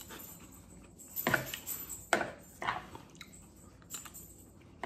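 Eating sounds: a metal fork clicking and scraping in a plastic bowl, with chewing, as a few short, separate clicks about a second apart.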